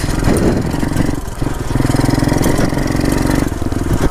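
Single-cylinder pit bike engine running under way off-road, its note dropping and picking up again twice in the first second and a half as the throttle is eased and opened, then holding steady.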